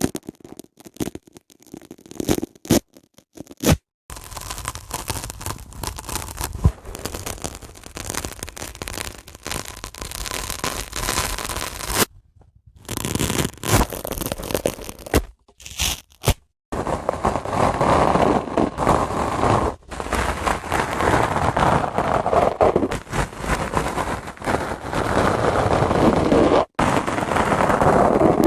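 Dry sponge being worked by hand with crackly scraping and crunching. A few sharp clicks come first, then long stretches of continuous scratchy noise, broken by brief pauses.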